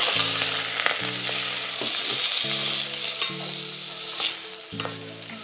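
Raw chicken pieces sizzling loudly as they go into hot oil in a metal pot and are stirred with a wooden spoon, the start of browning the chicken; the sizzle eases off slowly, with a few knocks of the spoon against the pot.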